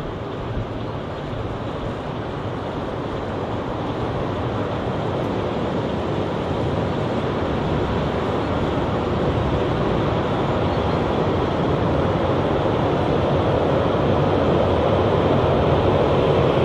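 Green Cargo Rc4 electric locomotive coupled to three Rd2 locomotives approaching on the track. It makes a steady rumble of wheels and running gear that grows gradually louder as the locomotives come closer.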